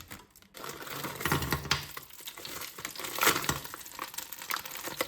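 Hot oil crackling and spitting in a frying pan, with many small pops and a couple of louder clatters; the oil is hot enough to spatter.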